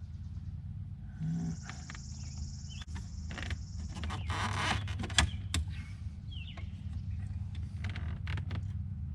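Scattered clicks, knocks and scraping as the Corvette's shifter spring and boot parts are handled and fitted back over the shift lever, with a steady low hum underneath.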